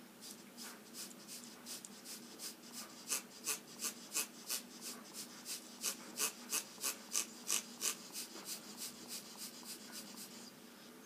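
Tim Holtz Distress Marker Spritzer's squeeze bulb pumped over and over, each squeeze blowing a short puff of air across the marker tip to spray ink: a long run of quick hissing puffs, about three a second, loudest in the middle and tapering off near the end.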